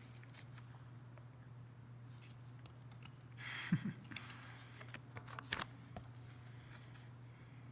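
Album packaging being handled during unboxing: a brief rustle about three and a half seconds in and a few light clicks and taps, over a steady low room hum.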